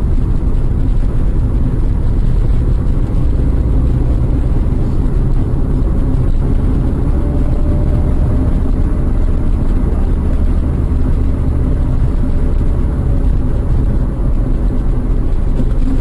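Steady low rumble of a car on the move, engine and road noise heard from inside the cabin, with a faint engine note that drifts slightly upward around the middle.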